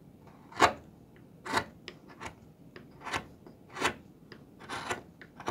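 Flat carving chisel pushed by hand into the end grain of a wooden block, about six short, crisp cuts less than a second apart, paring high spots off the base so the block stands level.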